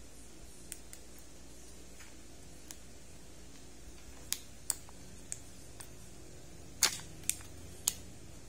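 Foil wrapper and plastic shell of a Kinder Joy egg being handled and pulled open: scattered sharp crinkles and clicks. The loudest cracks come about two-thirds of the way through, as the plastic egg is opened.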